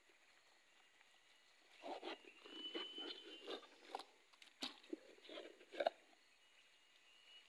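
Scraping, rustling and a few sharp clicks as a lump of coagulated rubber latex is pulled out of a tapping cup on a rubber tree and the cup is handled, starting about two seconds in and stopping about six seconds in, with the sharpest clicks shortly before and near the end of that stretch.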